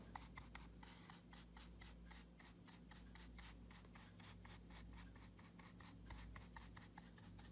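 Round bristle wax brush scrubbing white liming wax onto a painted wooden board: a faint, quick, repeated scratching of bristles, many strokes a second.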